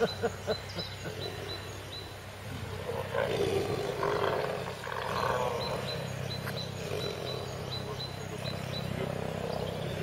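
Tigers growling while mating: a few short growls at the start, then a longer, louder growl from about three to six seconds in, settling to a lower, steady growl.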